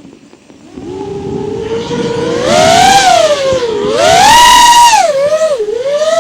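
FPV quadcopter's brushless motors whining, the pitch rising and falling with the throttle. It dips low at the start, climbs from about a second in, and peaks around three seconds in and again, highest and loudest, around four and a half seconds in, dropping between the peaks.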